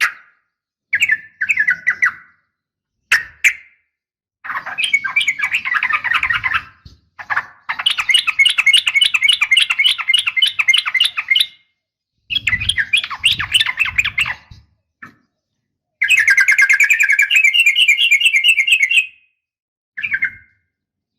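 Yellow-vented bulbuls (trucukan) calling and singing in separate bursts with silent gaps between, including two long, rapid rolling trills of three to four seconds each, one about a third of the way in and one near the end.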